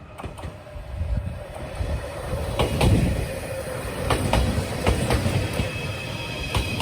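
JR Shikoku 8600 series electric train approaching and growing louder, its wheels clicking over rail joints above a low rumble. Steady high whining tones come in near the end.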